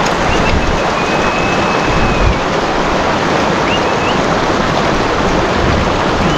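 Shallow mountain stream rushing steadily over rocks as a herd of yaks wades through it. A few thin, high whistles sound over it: a long one starting about half a second in, short rising ones around four seconds, and another at the very end.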